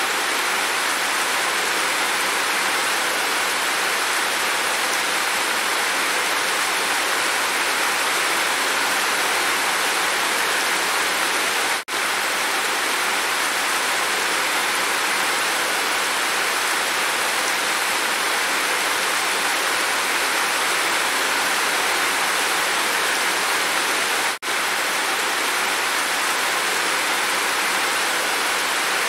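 Steady heavy rain, an even dense hiss of falling water pouring off a roof edge. The sound cuts out for an instant twice, about twelve seconds in and again about twelve seconds later.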